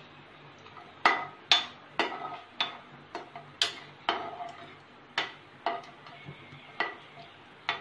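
Slotted metal spatula knocking against a nonstick frying pan while stirring cashews roasting in ghee: about a dozen sharp, ringing clacks, roughly two a second, starting about a second in.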